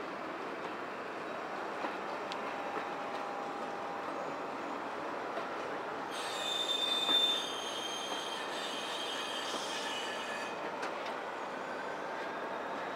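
Steam-hauled passenger coaches rolling slowly into a terminus platform, their wheels rumbling steadily on the rails. From about six seconds in, a high metallic wheel squeal rises, peaks briefly and fades out about four seconds later.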